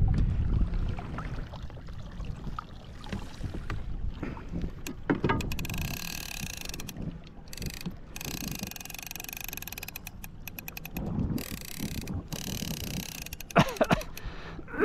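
Fishing reel's ratchet drag clicking and whirring in stretches, with a steady whine from about five seconds in and quick clicks near the end.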